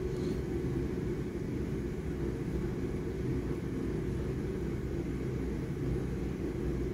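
Steady low background rumble, unchanging throughout.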